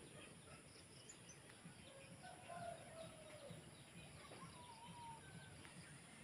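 A faint rooster crowing over near silence: one long call a couple of seconds in, falling at its end, and a shorter call about four seconds in, with a steady faint high hiss behind.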